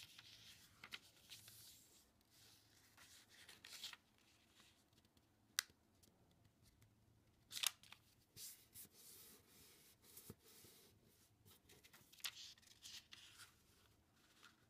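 Faint rustling and crinkling of a sheet of origami paper being turned over, folded and creased flat by hand, with a few sharper snaps of the paper.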